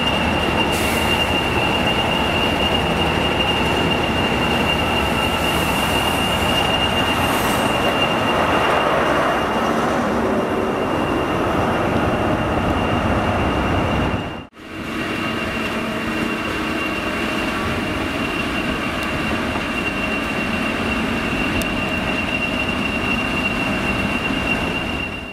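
GWR High Speed Train with a Class 43 diesel power car moving slowly past on a station platform: a steady running rumble with one high, steady whine over it. The sound breaks off for a moment about 14 seconds in and carries on much the same.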